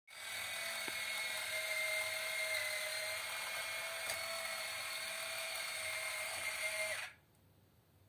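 Teksta robotic puppy's small electric motors and plastic gears whirring as it walks, a steady high-pitched whine that cuts off suddenly about seven seconds in as the toy settles into a sit.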